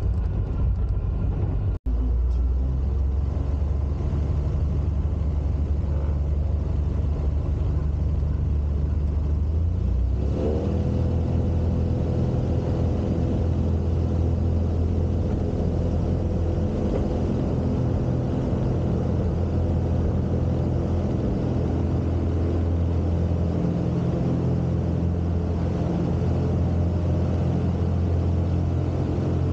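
Jabiru 3300 six-cylinder air-cooled aircraft engine and propeller running steadily, heard from inside the cockpit. About ten seconds in, the engine note climbs quickly as power is added, then holds steady at the higher pitch.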